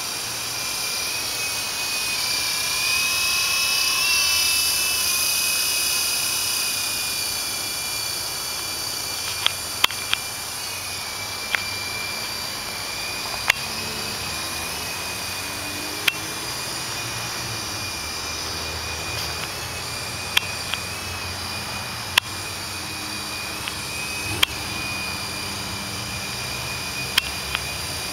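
Odyssey 333 Typhoon 12-inch toy RC helicopter's small electric motors and rotors running with a steady high whine, swelling louder a few seconds in, with sharp ticks every few seconds later on.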